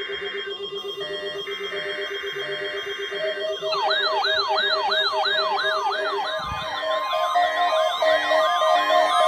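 Emergency alert data tones of a SAME header: harsh buzzing bursts. From about four seconds in they give way to a fast-wailing electronic siren, about three rises and falls a second. Steady beeping alert tones are layered over it and build up louder near the end.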